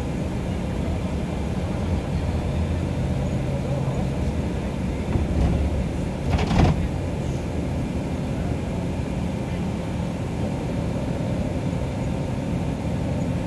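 Iveco Crossway POP bus heard from inside the passenger cabin while cruising: a steady engine drone and road noise. About six seconds in there is a brief louder clatter.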